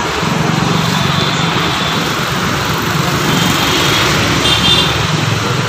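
Steady road-traffic noise with a motor vehicle's engine running close by; its low hum drops in pitch near the end.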